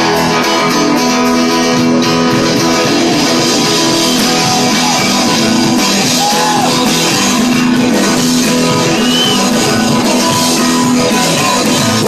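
Live rock and roll band playing at full volume: strummed acoustic guitar, electric guitar and drums.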